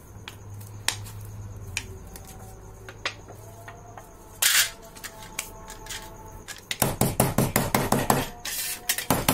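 Scissors cutting through a thin metal tin: scattered clicks and clinks of the sheet metal, then about two-thirds of the way in a fast run of rasping strokes, several a second.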